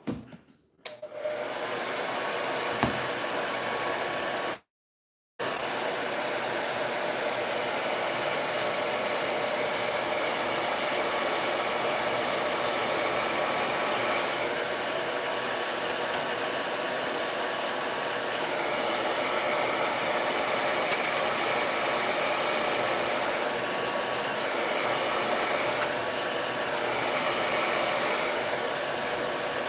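Handheld hair dryer blowing steadily over freshly painted MDF to dry the paint. It starts about a second in and cuts off right at the end, with a brief gap of silence about five seconds in.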